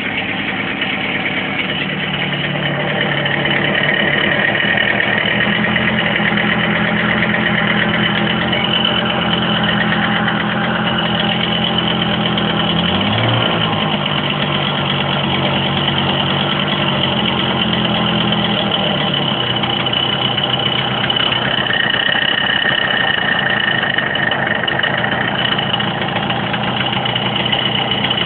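Hercules Prima 5 moped's small two-stroke engine, which springs into life and then idles with a persistent rattle, with a short blip of revs about halfway through. The rattle was traced to a worn needle bearing and piston.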